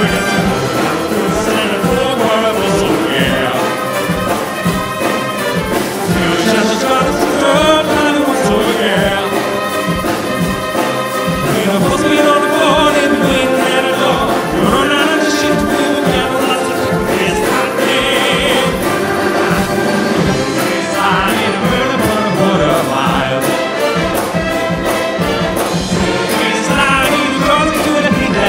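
Concert wind band playing an up-tempo rock-and-roll number, clarinets, saxophones and trumpets to the fore, with a male lead singer's voice over the band. A quick ticking cymbal beat comes in about two-thirds of the way through.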